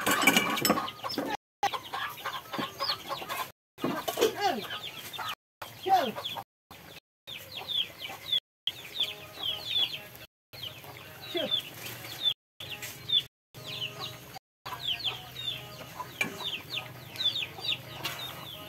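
Chickens clucking: many short, high, falling calls in quick succession, with a few lower, louder calls in the first few seconds.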